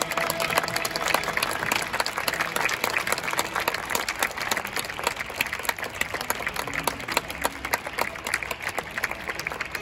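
Stadium crowd applauding: many hands clapping steadily.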